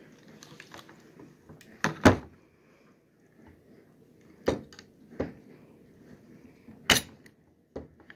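Knocks and clicks of an SKS rifle being handled and set against a table: a loud double knock about two seconds in, then three more single clicks spread over the next five seconds.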